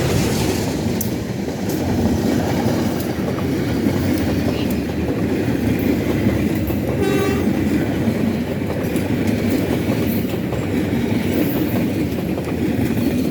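A train passing close by, hauled by a CC 204 diesel-electric locomotive: a steady loud rumble of wheels on rail with scattered clicks from the rail joints. A brief tone sounds about halfway through.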